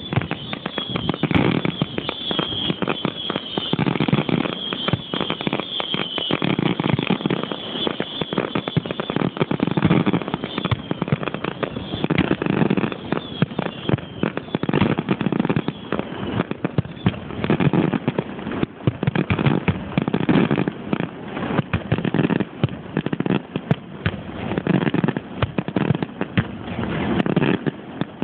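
Fireworks display: a dense, unbroken barrage of bangs and crackling from bursting shells and firecrackers, with a high whistling tone over the first several seconds.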